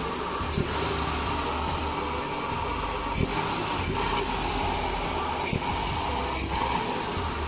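Suzuki Alto engine running steadily with an aftermarket mushroom cone air filter on its intake: a low drone under a steady hiss, with a few faint clicks.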